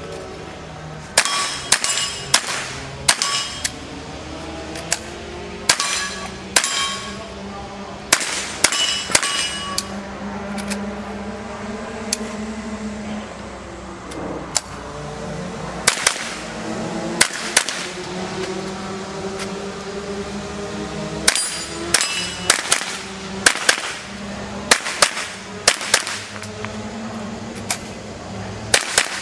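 .22 rimfire rifle shots fired in quick pairs and strings, about two dozen in all, with a pause of several seconds near the middle while the shooter moves between positions. Some shots are followed by a short metallic ring.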